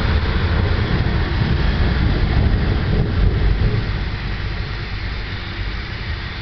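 Heavy rain hissing steadily on a wet street during a thunderstorm, under a deep low rumble that fades from about four seconds in.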